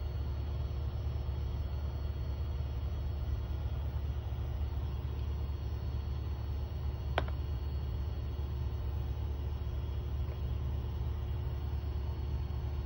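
UALAU OL280 laminator running as its rollers draw a laminating pouch through, a steady low hum. A single sharp click about seven seconds in.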